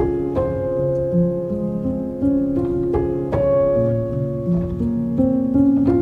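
Background music led by piano, with notes and chords struck and held at a gentle, unhurried pace.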